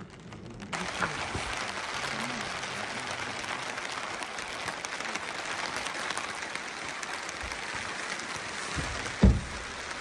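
Rain pattering steadily on a blue plastic tarp, a dense patter of many small drops. A single thump near the end.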